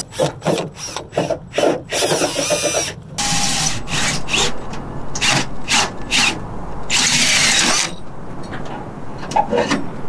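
Cordless drill with a 3-inch hole saw cutting through the sheet-metal side wall of a school bus, in stop-start bursts of grinding with short pauses between them.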